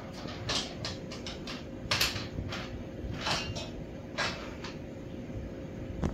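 A kitten's paws scuffling and skittering on a hardwood floor as she pounces on and grabs a toy: a run of short, irregular scraping and rustling noises.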